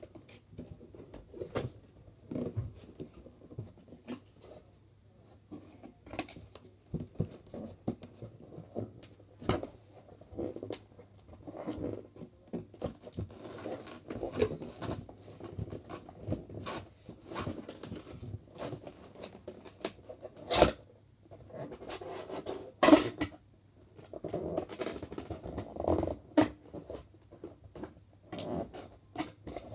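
A cardboard toy box and its inner packaging being handled and opened: irregular rustling, scraping and tapping, with two louder sharp knocks about twenty and twenty-three seconds in.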